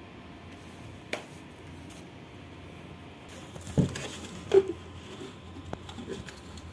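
Handling noise on a valve actuator's metal housing: a sharp click about a second in and two louder thumps around four seconds in, over a low steady hum.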